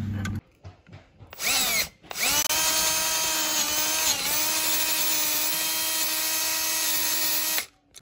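Cordless drill spinning up briefly, then running steadily with a high whine for about five seconds as it bores a wider bolt hole through a metal horn bracket. Its pitch dips briefly partway through, and it stops sharply near the end.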